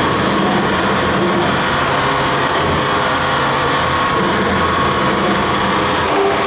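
Automatic knife grinding machine running: a steady mechanical drone and grinding noise with a faint even hum through it. The sound changes slightly near the end.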